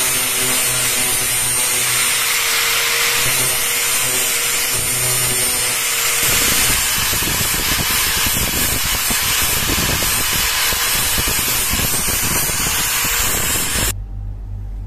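Electric angle grinder with a sanding disc grinding a steel shovel part clamped in a vise, the motor running steadily under a harsh grinding hiss that changes in texture about six seconds in. The grinding cuts off suddenly near the end.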